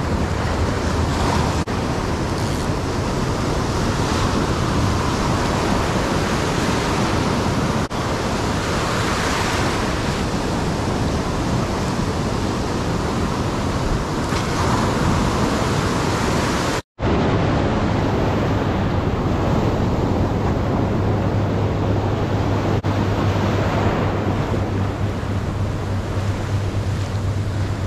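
Ocean surf breaking and washing in a steady rush, heard close from within the wash. The sound drops out for a split second about two-thirds of the way in.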